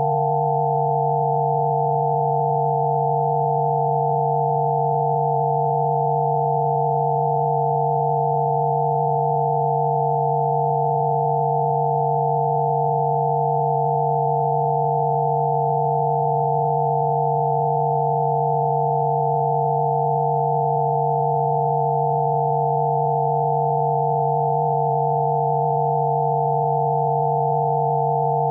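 Electronically generated Rife-frequency sine tones, several pure tones sounding together: one low tone with a cluster of higher ones above it, perfectly steady and unchanging throughout.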